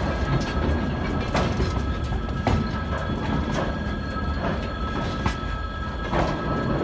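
Freight train of tank cars rolling slowly past, the wheels clicking over rail joints about once a second over a steady rumble.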